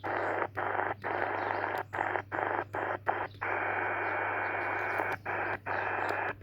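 Sony ICF-SW100 portable shortwave radio on the 20-metre band giving only static hiss through its small speaker, with a low steady hum underneath. The hiss drops out in brief silences about twice a second for the first three seconds and twice more near the end. It is empty band noise, no station audible, as the bands are bad today.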